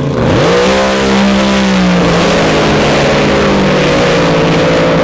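Drag boat's racing engine revving: the pitch rises at the start and holds high and steady, with a brief sag about two seconds in.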